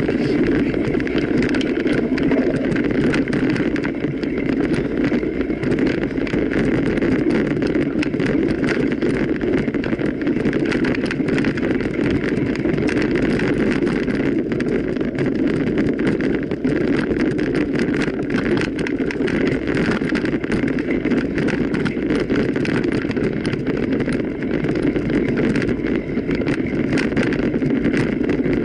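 Continuous noise of a mountain bike being ridden over rough ground: steady tyre rumble with a dense scatter of small rattles and clicks, and wind buffeting the microphone.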